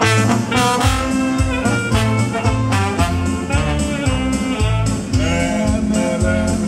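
Live polka band playing a polka, with saxophone and trombone carrying the melody over a steady two-beat rhythm and bass notes.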